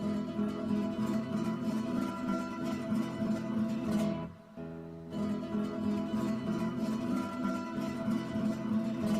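Flamenco-style acoustic guitar music, fast rhythmic strumming, that breaks off briefly a little past four seconds in and then resumes.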